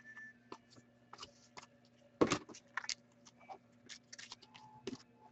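Hockey trading cards being handled and sorted by hand: scattered soft clicks and rustles, with a louder snap a little over two seconds in, over a faint steady hum.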